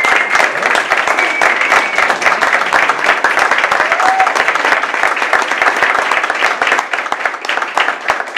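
Audience applauding steadily, a dense patter of many hands clapping, which thins a little near the end.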